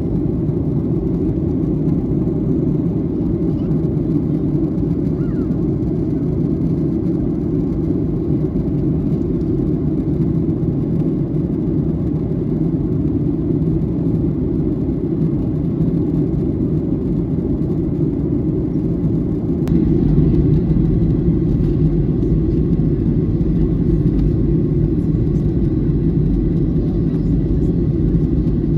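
Steady low rumble of a jet airliner cabin in flight: engine and airflow noise heard from a window seat. About two-thirds of the way through it steps up slightly louder and deeper.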